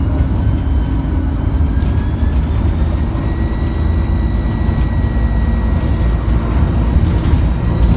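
Alexander Dennis Enviro200 single-deck bus's diesel engine running with a heavy low rumble, its turbocharger whining in thin high tones that rise slowly in pitch from about two seconds in as the bus pulls.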